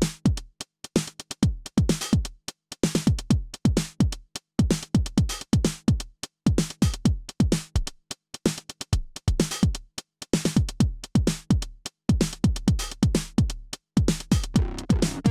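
Behringer RD-9 drum machine, a clone of the Roland TR-909, playing a techno pattern at 128 bpm. Its kick drums thud with a falling pitch, mixed with short crisp hits, with a few brief gaps in the pattern.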